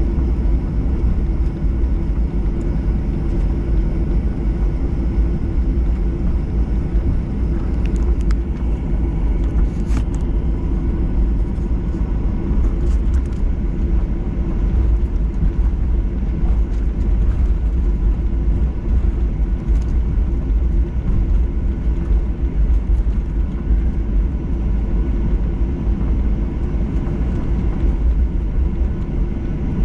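Jet airliner cabin noise while taxiing: a steady low rumble from the engines at taxi power and the wheels rolling over the apron, heard from inside the cabin, with a faint steady whine above it.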